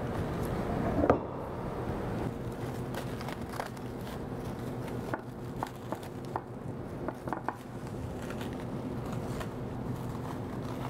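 Scattered light clicks and clinks of plates and serving utensils, with some crinkling of plastic wrap, as buffet platters are uncovered and arranged on a counter, over a steady low hum.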